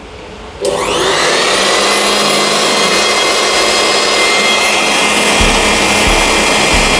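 Stanley electric blower switched on about half a second in, its motor whine rising quickly as it spins up, then running steadily at full speed.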